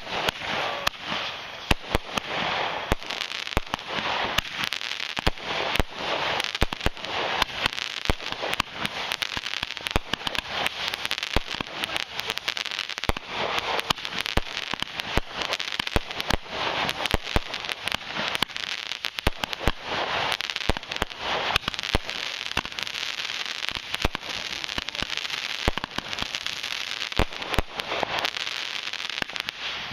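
Consumer fireworks going off without a break: a dense, steady crackling studded with many sharp pops.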